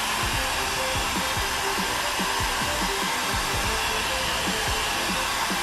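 Heat gun blowing steadily, heating a strip of Worbla thermoplastic to soften it for shaping.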